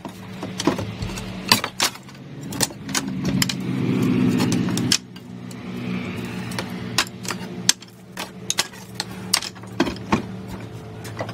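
House demolition: scattered knocks of a hammer on the ceiling and walls and the clatter of falling lath and debris, over a steady low hum.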